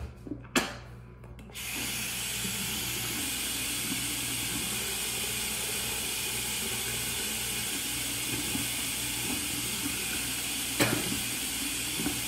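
Bathroom sink tap turned on about a second and a half in, water running steadily into the basin close by. A short knock near the end.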